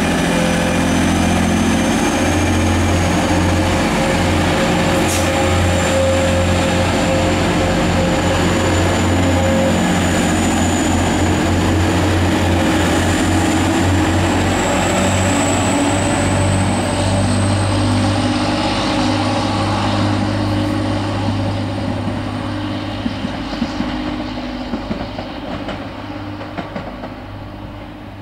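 Class 185 diesel multiple unit 185143 departing a station: its diesel engines run under power with a steady deep note and a high whine slowly rising in pitch. The sound fades over the last third as the train draws away.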